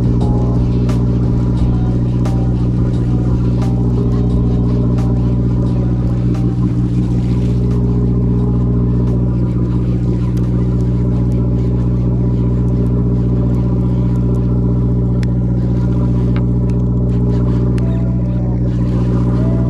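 A sportfishing boat's engine runs with a steady low drone, with scattered light clicks over it.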